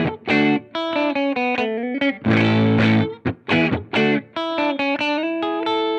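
Fender Jazzmaster electric guitar played through a Ground Control Serpens optical compressor with its blend turned up, into a Strymon Iridium amp modeller. Strummed chords alternate with picked single-note lines, ending on a held chord that rings on.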